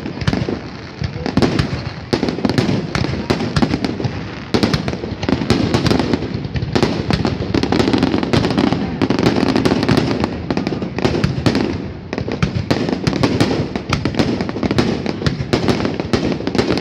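Aerial fireworks bursting overhead in a dense, unbroken barrage of many sharp bangs and crackles.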